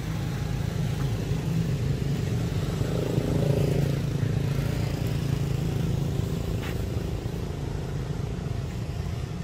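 An engine running steadily with a low, even hum, its speed unchanging.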